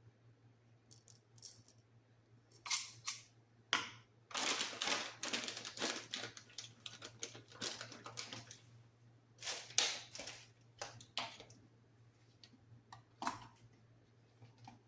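Clicks and clatter from handling an electric coffee grinder and its bean container, with a few seconds of dense rattling near the middle; the grinder motor is not running.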